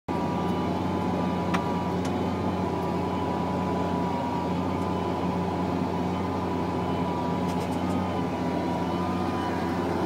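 Challenger MT765C tracked tractor's diesel engine running steadily under load while pulling a plough, heard from inside the cab. A steady high whine sits over the engine drone, and a single sharp click comes about one and a half seconds in.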